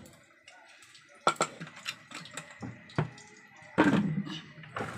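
A few separate sharp knocks and clinks of kitchen utensils being handled, the loudest about four seconds in.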